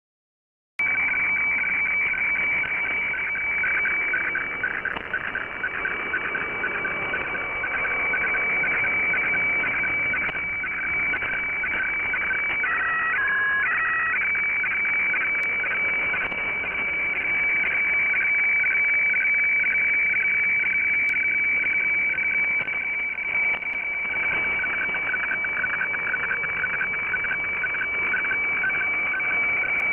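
HF weather radiofax broadcast from Kyodo News received as single-sideband audio on a Flex-5000A radio: a steady high tone with a rougher, warbling lower tone beneath, the frequency-shifted signal that carries the weather-map image line by line. It starts abruptly about a second in.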